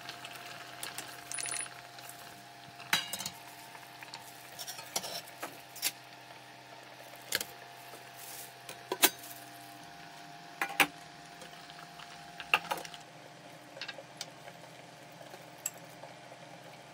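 Irregular clinks and knocks of stainless-steel pot tiers, lids and utensils being handled, a dozen or so sharp strikes spread through, over a faint steady hum.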